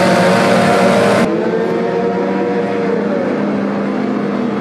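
Several racing outboard engines on tunnel-hull powerboats revving hard as the boats launch from a standing start in the water, their pitches climbing and holding. About a second in the sound changes abruptly to boats running past at speed, a steadier engine note that wavers slightly.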